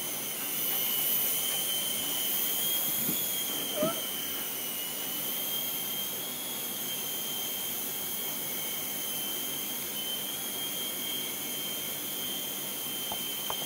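Small remote-control toy helicopter in flight, its motor and rotors giving a steady high whine that wavers slightly in pitch, with a hiss above it. A brief squeak cuts in about four seconds in.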